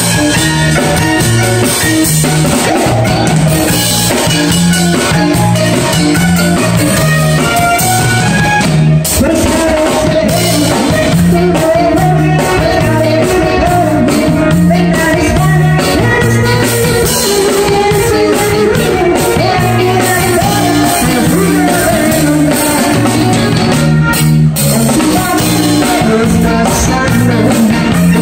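A live band playing loud: electric bass with a steady repeating bass line, keyboard and drum kit through small PA speakers, with a singer over them.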